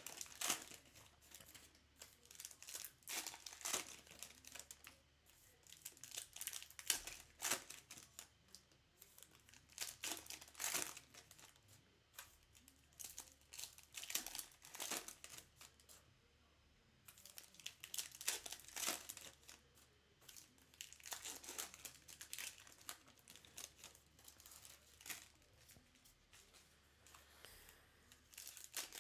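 Foil wrappers of trading card packs crinkling and tearing as the packs are opened and handled, in repeated bursts of crackling with a brief lull a little past halfway.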